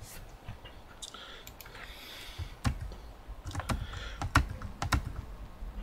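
Keystrokes on a computer keyboard: a handful of separate key presses, spaced irregularly.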